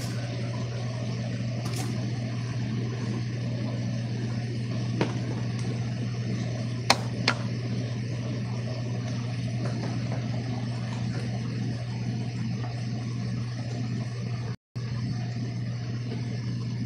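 A steady low hum, like a running appliance or fan, with a few faint clicks; it drops out for an instant near the end.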